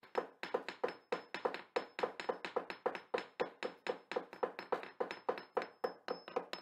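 Rhythmic tapping or knocking, about four sharp hits a second, each dying away quickly.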